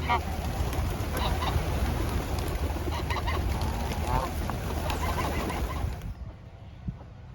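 Geese honking repeatedly among other waterfowl, over a steady low rumble. The sound drops away suddenly about six seconds in.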